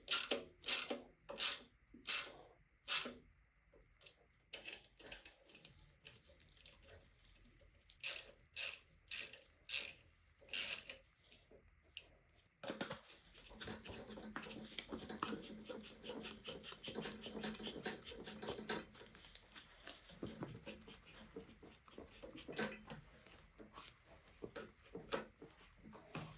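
Workshop handling sounds on a bicycle under restoration: a series of sharp clicks and knocks in two runs. About halfway through, a steady rough rubbing or rasping noise starts, easing off in the last few seconds.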